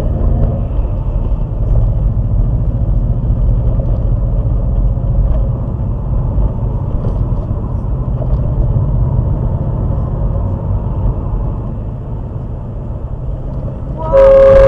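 Steady low road and engine rumble heard from inside a moving car. About fourteen seconds in, a car horn sounds in one loud, steady blast, a warning at a car pulling out in front at a roundabout.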